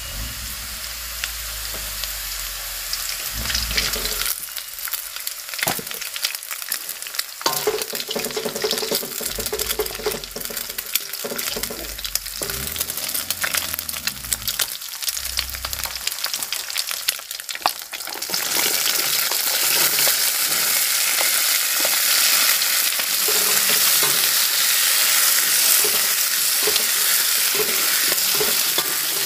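Oil sizzling and crackling in an aluminium wok as sliced shallots, chilies and egg fry, with scattered sharp pops and clicks. About eighteen seconds in the sizzle turns suddenly louder and denser as the long beans go into the hot oil and are stirred.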